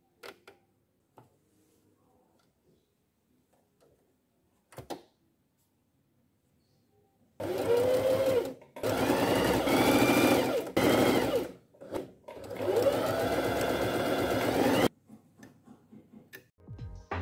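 A few faint clicks, then about seven seconds in a domestic electric sewing machine starts stitching. Its motor whine rises and falls with speed in three runs separated by short pauses, and it stops about fifteen seconds in.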